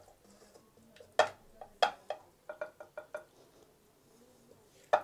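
Wooden spatula knocking and scraping against a metal cooking pot as curry is scooped out: two sharp knocks, then a quick run of lighter taps, and one more knock near the end.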